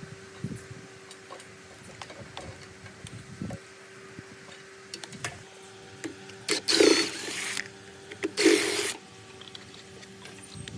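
Cordless drill-driver run in two short bursts, a little over a second and then under a second, backing the screws out of the cover on an old air compressor motor's wiring box. Small clicks and taps of handling come before and after.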